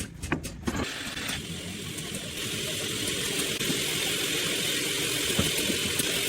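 A vehicle engine running steadily under a hiss that comes in about a second in and holds at a constant level.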